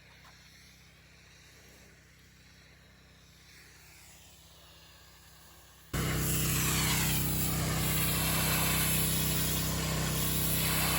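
Faint low hum for about six seconds, then a gas-powered pressure washer's engine running steadily with the loud hiss of its high-pressure water spray, cutting in suddenly and cutting off just at the end.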